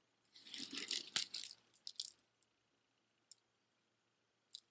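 A strand of plastic beads and other costume jewelry clicking and rattling as it is handled. There is a run of rattles over the first two seconds, a couple of single ticks, then more clicking near the end.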